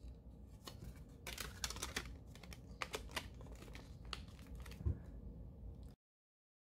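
Faint, irregular small clicks and taps of a plastic smartphone, a Sony Ericsson Xperia X10, being handled in the fingers, with one duller thump about five seconds in. The sound cuts off to dead silence near the end.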